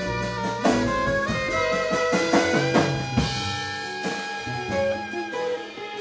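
Small jazz band playing: saxophone holding melody notes over electric guitars, bass and drum kit, with scattered drum hits.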